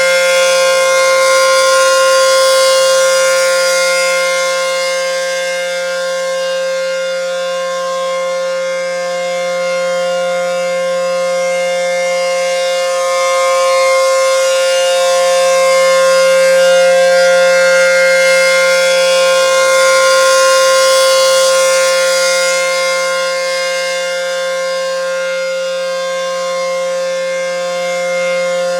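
ACA P-10 outdoor warning siren sounding a steady, loud tone at a constant pitch. Its loudness swells and fades slowly twice.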